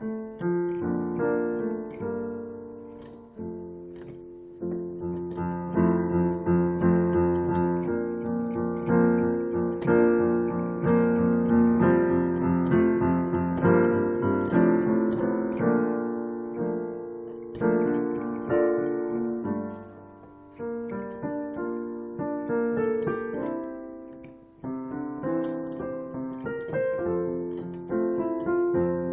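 Piano playing a gentle piece of chords and melody in phrases, dropping away briefly about 4, 20 and 24 seconds in.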